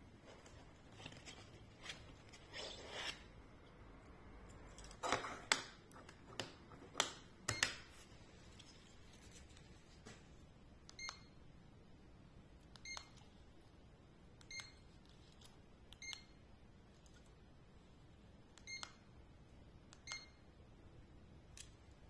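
Handling clicks and knocks as the laser level and its mounting bracket are adjusted, then six short electronic beeps a second or two apart as buttons are pressed on the DEKO LL12-GTD 3D laser level's remote control.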